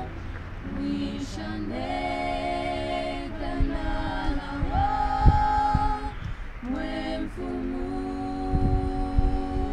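Four women singing a prayer hymn a cappella in harmony, holding long notes with short breaks between phrases. A couple of low thumps come through, one about midway and one near the end.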